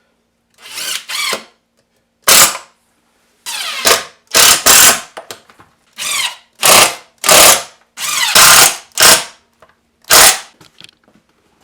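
Electric drill run in about a dozen short trigger bursts, each spinning up and down, with brief pauses between.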